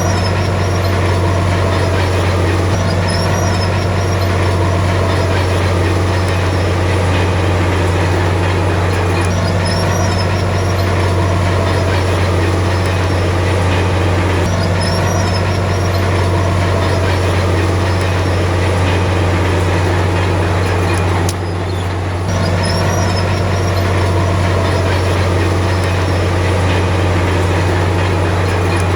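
Komatsu D53P bulldozer's diesel engine running steadily at working revs with a strong low hum, dipping briefly about 21 seconds in.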